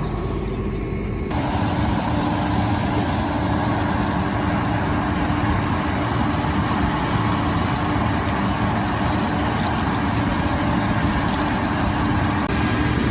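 An engine running steadily. About a second in, a steady hiss with a constant hum starts and keeps going, typical of air or water being blown through sprayer nozzles.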